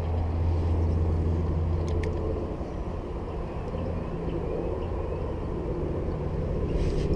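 Low, steady hum of a motor vehicle engine, strongest in the first couple of seconds and then easing off.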